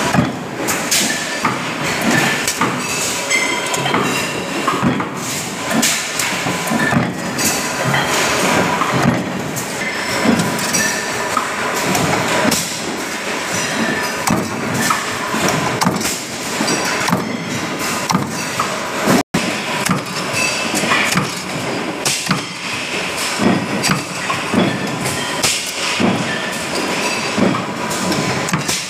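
A 150-ton press punching holes in steel sheet: repeated heavy strokes and metallic clanks over a steady workshop din. The sound drops out for a moment about two-thirds of the way through.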